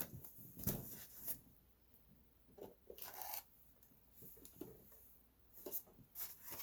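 Faint, irregular rustling and scraping of packaging being handled, foam and plastic rubbing as the RC truck is unpacked from its box.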